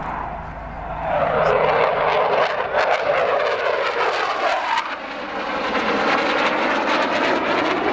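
Swiss Air Force F/A-18 Hornet's twin General Electric F404 jet engines roaring as the fighter passes close overhead. The noise swells about a second in and stays loud, with a sweeping, phasing whoosh as it goes by.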